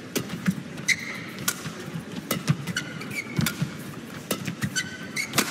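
A fast badminton rally: sharp racket strikes on the shuttlecock come every half-second to second. Short high squeaks of court shoes on the floor fall between the strikes, over the steady hum of the arena.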